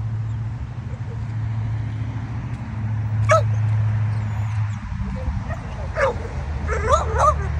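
A dog barking and yipping: one sharp yip about three seconds in, another about six seconds in, then a quick run of yips near the end, over a steady low hum.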